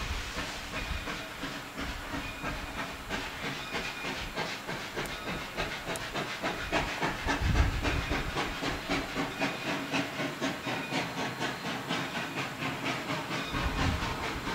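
Small 0-6-0 steam switcher locomotive (Ohio Power & Light No. 3) working under steam: a quick, even beat of exhaust chuffs over a steady hiss of steam.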